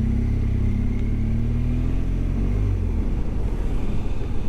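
BMW GS motorcycle engine running on the road, its pitch rising gently over the first two seconds as it pulls away, then settling into a steady low rumble over a constant rush of road noise.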